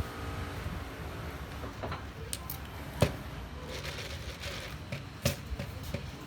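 A steady low background rumble with a few sharp knocks, the loudest about three seconds in and another about two seconds later.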